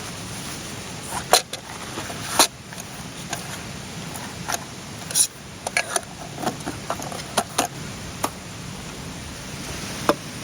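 Scattered light clicks, clinks and knocks of small camp gear being handled, over a steady rushing background.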